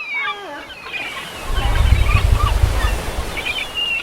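A run of short squealing calls that glide up and down in pitch, thick in the first second and again near the end. A loud, low rumble with a hiss swells up in the middle.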